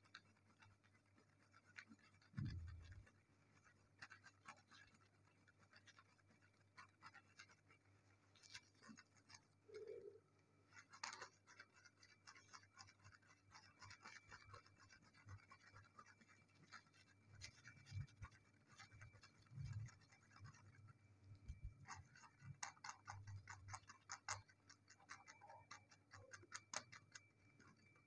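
Near silence: faint scattered ticks and scratching, with a few soft low thumps.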